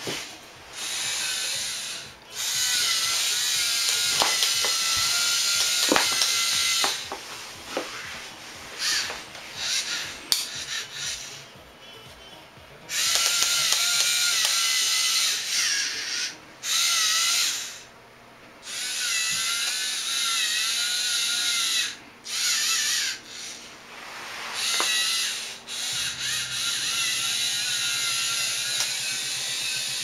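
Electric motors and plastic gearing of a LEGO 8297 4x4 off-road truck driven by Mindstorms NXT, giving a high-pitched gear whine as it drives. The whine comes in runs of one to several seconds, starting and stopping abruptly over and over as the truck is driven in spurts.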